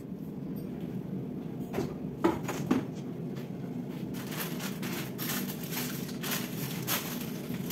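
Food being handled inside an open refrigerator: a few light clicks and knocks of containers, then from about halfway through an irregular rustling of a plastic bag and items being moved on the shelves.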